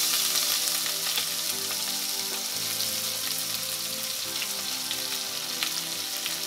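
Chopped onion frying in hot oil with cumin seeds: a steady sizzling hiss, with a few light clicks near the end.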